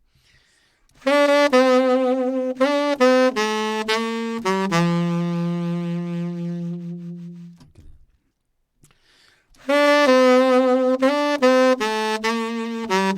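Saxophone playing a short descending melodic phrase that ends on a long held low note, which fades away. After a pause of about two seconds the same phrase starts again.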